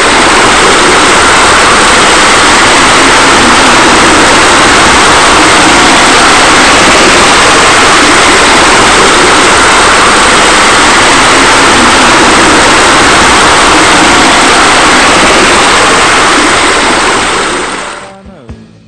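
Loud, steady rushing noise with no tone or rhythm in it, fading out near the end.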